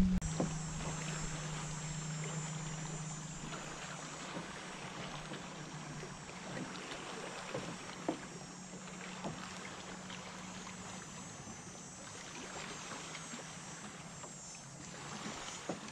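Small water sounds against a kayak's hull with light wind, and a few soft knocks. A low steady hum fades away over the first few seconds.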